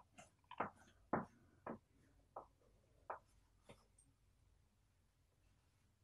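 Chalk writing on a blackboard: a run of short taps and scrapes as letters are written, about seven strokes over the first four seconds, then a pause.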